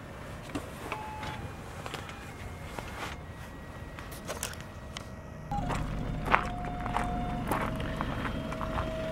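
Glitchy electronic music boxes playing a thin, monophonic melody of held notes. The notes get louder about halfway through, when a steady low outdoor rumble also comes in, with a few clicks and footsteps.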